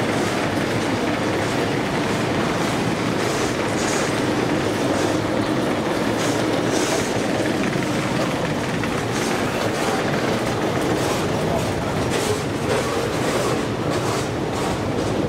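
Escalator running: a steady mechanical rumble with irregular clicks and rattles from the moving steps.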